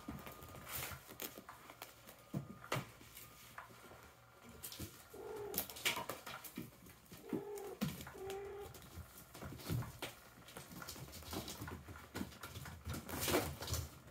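Kittens pawing and scuffling on a carpet and a fabric-covered cat toy: scattered light scratches, taps and rustles. Three short, low cooing calls come in the middle, one about five seconds in and two close together a couple of seconds later.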